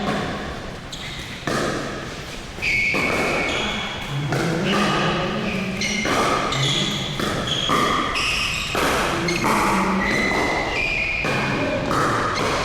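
Pickleball play: repeated sharp pops of paddles striking the plastic ball, mixed with ball bounces on the court, about a dozen impacts at an uneven rally pace.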